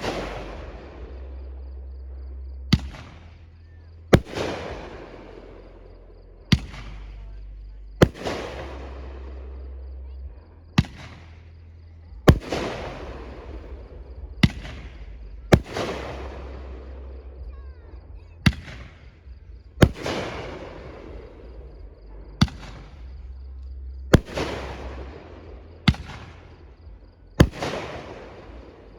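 Aerial fireworks shells bursting one after another: a sharp bang every second and a half to two and a half seconds, each trailing off over a second or two.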